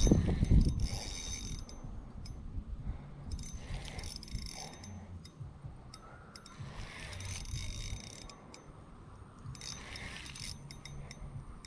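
Fishing reel being cranked in short spurts, a fast clicking gear whir about every three seconds, while a hooked striped bass is reeled in. There are low knocks and water rumble near the start.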